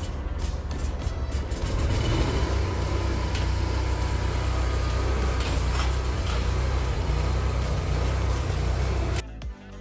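Vermeer SC362 stump grinder's engine running steadily with a deep rumble. It cuts off abruptly near the end.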